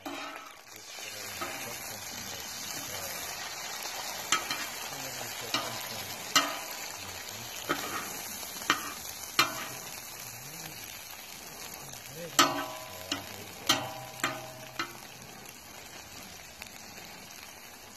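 Hash browns sizzling on a steel plow-disc cooker while a metal spatula stirs them. The spatula scrapes and taps against the disc about ten times in the middle.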